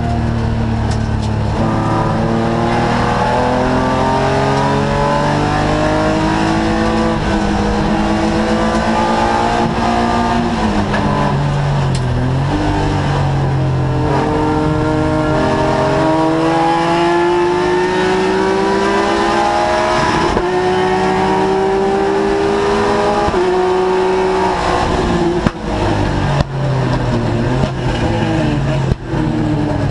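Race car engine heard from inside the cockpit, pulling hard through the gears: its pitch climbs in long sweeps and drops back at each upshift. Near the end the sound cuts out briefly a few times as the throttle is lifted.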